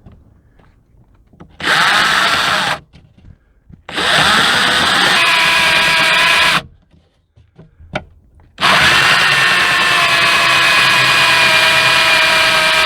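Cordless drill with a Phillips bit driving a self-tapping screw into a replacement rear moonroof sunshade latch, in three runs: a short one, a longer one, and a long final one whose whine sinks slightly in pitch as the screw taps its own way in.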